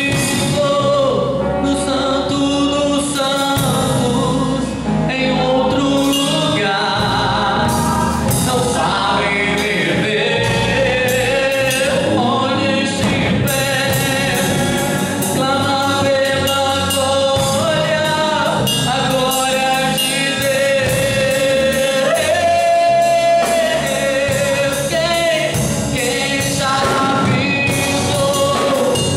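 Live gospel worship band: a man singing with electric guitar, electric bass and a drum kit, the cymbals and drums hitting throughout.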